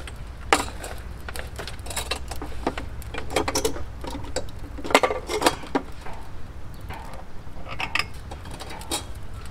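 Irregular crackling and clicking of a freshly lit wood fire, with a few sharper knocks, the loudest about half a second in and about five seconds in.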